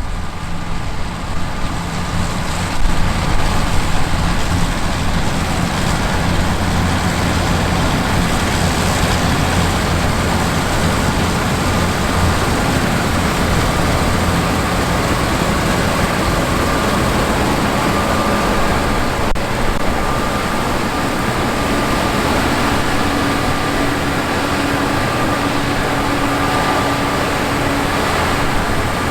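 Gleaner S97 combine harvester running steadily while harvesting wheat: its 8.4-litre AGCO Power twin-turbo seven-cylinder diesel engine together with the whir of the threshing machinery. An extra low steady hum joins in about two-thirds of the way through.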